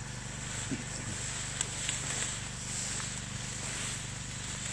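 Engine-driven sprayer pump running steadily as a low hum, under a steady hiss of herbicide spray from a hose-fed handgun wand, with a few faint clicks.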